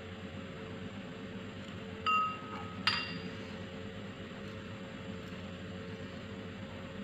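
Two clinks of a metal fork against a dish, a short ringing one about two seconds in and a sharper one a second later, over a steady low hum.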